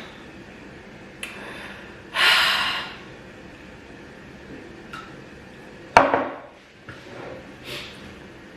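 Eating sounds at the end of a meal: a loud breath out about two seconds in, then a sharp clink of a dish or utensil about six seconds in, with small clicks between.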